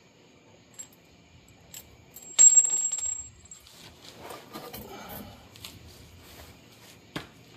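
Metal striking metal while exhaust hardware is handled: one sharp clank about two and a half seconds in with a high ringing tail lasting nearly a second. Fainter clinks and rattles follow, with a short click near the end.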